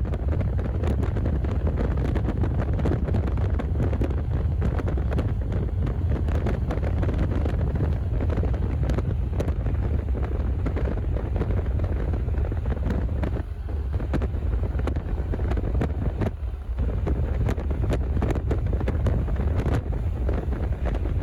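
Wind buffeting the microphone: a loud, steady low rumble with scattered crackles, easing briefly twice.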